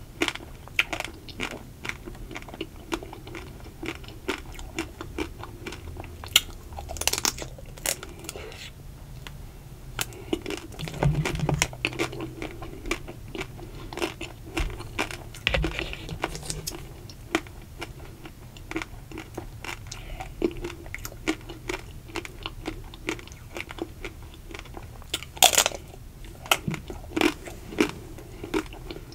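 Close-miked eating of ruby-chocolate-coated ice cream bars: bites crack through the thin ruby chocolate shell, followed by chewing with many small crunches of the coating. A few sharper bites stand out, around the middle and again about three quarters of the way through.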